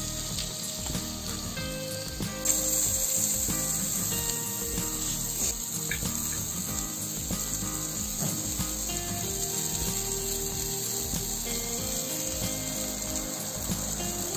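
Marinated chicken leg pieces sizzling on a charcoal grill, with soft instrumental music playing underneath.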